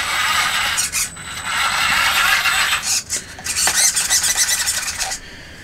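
Electric drivetrain of a Tonka toy tractor converted to radio control with a 1/10-scale drive train, whirring in three bursts of about a second each as it drives and turns, with a thin high whine.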